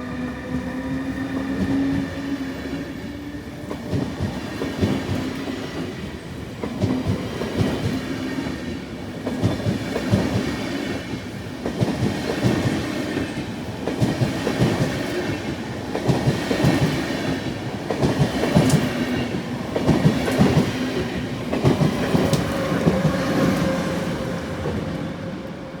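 Swiss Re 460 electric locomotive and its passenger coaches pulling out and rolling past, wheels clacking over rail joints in a steady run of clicks and rumble.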